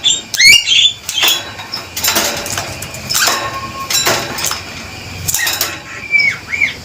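Male Javan myna (jalak kebo) calling loudly: a string of harsh, grating notes and clicks about once a second, mixed with short rising whistles near the start and two looping whistled notes near the end.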